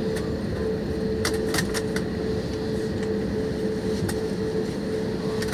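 Steady cabin noise of an Airbus A320-family jet airliner rolling out on the runway after landing: engine and airflow rumble with a held hum, and a few light clicks in the cabin.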